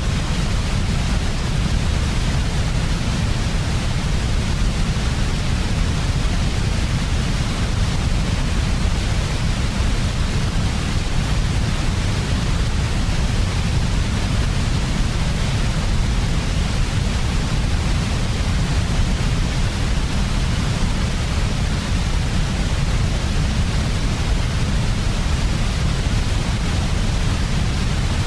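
Steady white noise made for baby sleep, even and unchanging, with a deep low rumble beneath a softer hiss.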